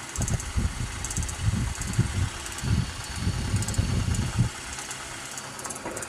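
Aiwa AD-F770 cassette deck rewinding a tape on freshly fitted belts: the transport motor and reels whir steadily, with an uneven low rumble that stops about four and a half seconds in. The cassette is stiff and tight to wind, yet the new belts drive it fine.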